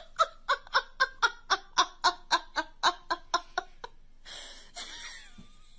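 A person laughing in a quick run of about fifteen 'ha's, about four a second, stopping a little over two-thirds of the way through. A short hiss follows.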